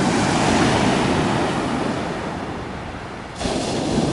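Waves breaking and washing up a sand-and-shingle shore. The surf fades a little, then comes back suddenly louder about three and a half seconds in.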